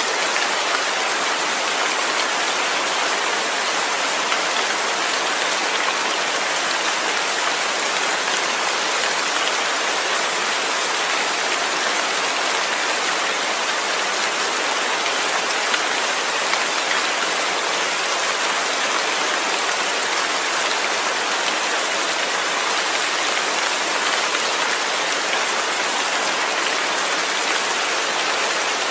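Steady heavy rain falling, a dense even hiss of drops on surfaces with no change in strength.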